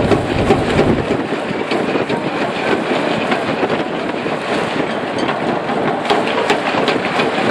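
Ballpark crowd noise with many short claps or knocks, and strong wind buffeting the microphone as a low rumble for about the first second.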